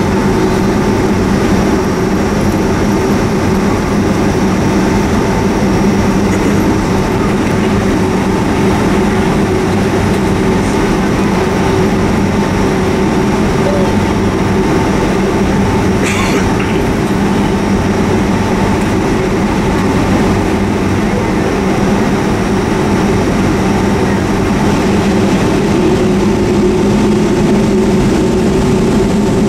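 Boeing 757-200's jet engines running at idle, heard inside the cabin while the airliner taxis: a steady hum with a faint high whine over it. A brief click about halfway through.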